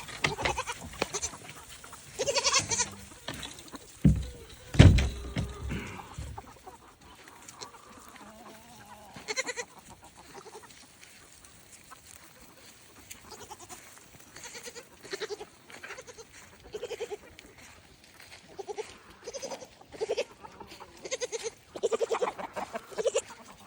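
Goats bleating over and over in short calls, more often in the second half. A loud low thump comes about four to five seconds in.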